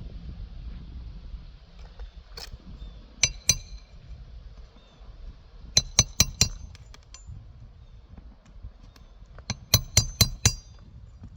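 Hammer striking a metal roof snake shingle-repair tool to drive a roofing nail under a shingle. Sharp ringing clinks come in quick groups: two, then four, then five.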